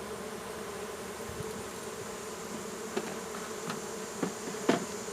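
A swarm of honeybees buzzing steadily around an open hive, with a few light knocks in the last couple of seconds.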